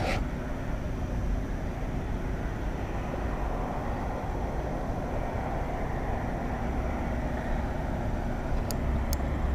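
Steady outdoor rumble and hiss, with two faint clicks near the end.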